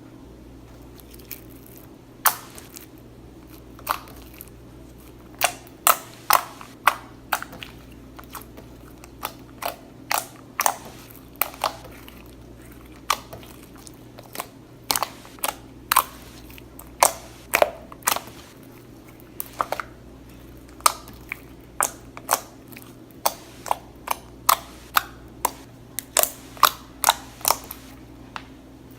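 Slime being squeezed and poked by hand, giving irregular sharp clicks and pops, one or two a second.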